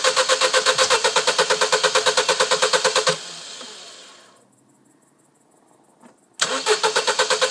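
Starter motor cranking an engine that won't start, with an even rhythm of about six compression pulses a second. The cranking stops abruptly about three seconds in, and after a few seconds of quiet it starts again. The engine never catches.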